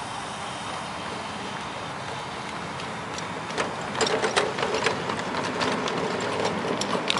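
Small ridable live-steam locomotive crawling slowly over the track: a steady hiss, then from about halfway an irregular run of sharp clicks and clanks as it rolls along.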